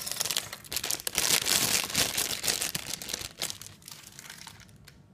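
Plastic packaging of a LEGO polybag set crinkling and rustling as it is torn open and handled. The crackle is dense and loudest through the first three seconds or so, then thins out and dies away near the end.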